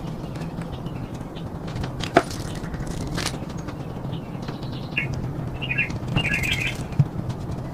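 Small birds chirping in short bursts from about five seconds in, over a steady low hum, with a few sharp clicks scattered through.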